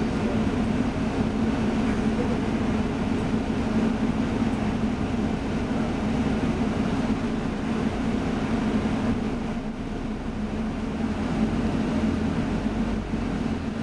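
Steady drone and rumble inside a moving London bus, engine and road noise with a strong low hum. The rumble deepens and grows near the end.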